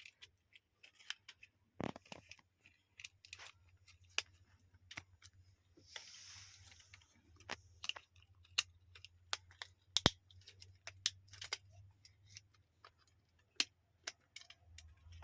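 Irregular small clicks and taps of plastic keypad-phone parts being handled and pressed into place, with a brief soft rustle about six seconds in, over a steady low hum.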